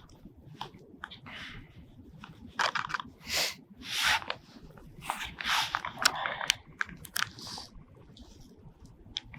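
Plastic food pouch crinkling and rustling in irregular crackles and clicks as a just-rehydrated meal is stirred inside it with a plastic utensil.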